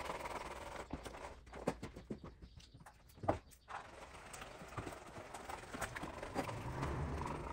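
A plaster-caked wooden profile template being pushed and scraped along a casting bench over wet plaster, with irregular knocks and clacks. The loudest knock comes a little over three seconds in.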